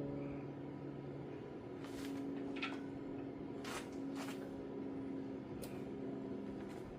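A few sharp clicks and light knocks, as of tractor parts and tools being handled, over a steady low hum.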